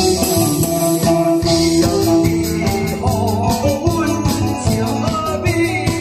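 Amplified song over a loud backing track with a steady beat, and a voice singing into a microphone over it.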